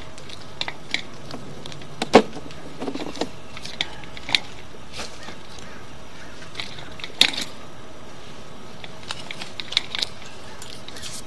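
Sewer inspection camera's push cable being fed into the pipe: scattered light clicks and knocks over a steady hiss, the loudest knocks about two seconds in and about seven seconds in.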